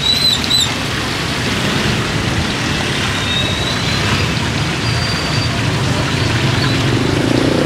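Street traffic noise with engines running steadily, and a few short high squeaks near the start.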